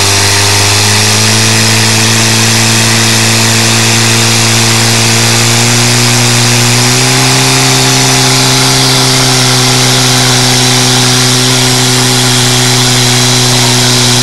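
Portable fire pump's engine running hard at a steady high speed, pumping water out through the delivery hoses to the spraying jets. Its pitch steps up slightly about halfway through.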